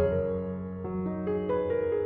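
Background music: a keyboard melody of changing notes over held bass notes.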